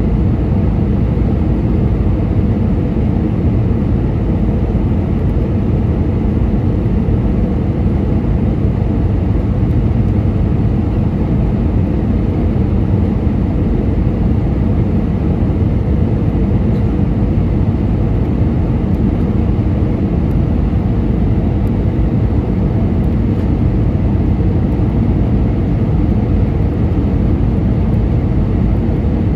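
Steady low cabin roar inside an Airbus A320-232 on final approach, heard from a window seat beside its IAE V2500 turbofan engine.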